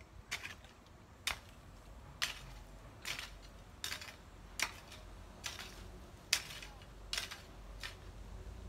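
A hoe chopping into grassy soil: a steady run of about ten sharp strikes, one a little under every second.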